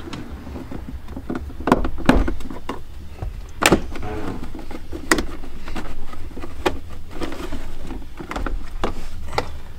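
Plastic roll-bar trim panel of a 2016 Jeep Wrangler being pried with a flat screwdriver and worked loose by hand: irregular clicks, knocks and snaps of the panel and its clips as it pops free, over a low steady hum.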